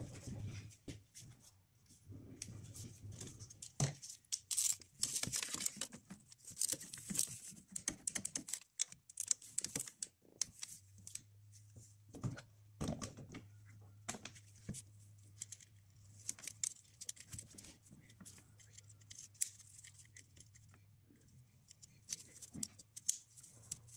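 Hand-tool and handling noises from refitting and screwing down a plastic thermostat housing on a 1.9 TDI engine: scattered sharp clicks and rattles with short scraping, rustling sounds, busiest in the first half. A faint low hum runs through the middle.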